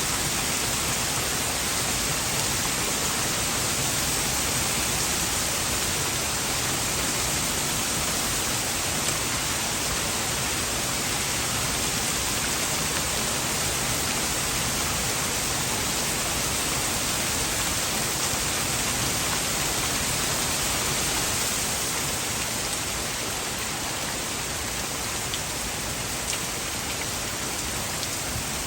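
Heavy storm rain pouring down in a dense, steady hiss, easing slightly about two-thirds of the way through.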